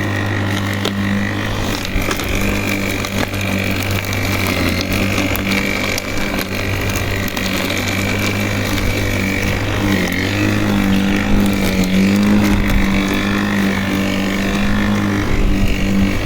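WORX 40 cm battery-powered lawnmower running and cutting grass: a steady motor hum with a high blade whine. About ten seconds in, the pitch dips briefly and recovers as the motor takes more load.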